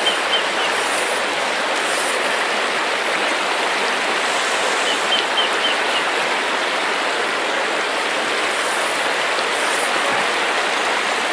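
Steady rush of a swift, shallow stream running over a stony riffle.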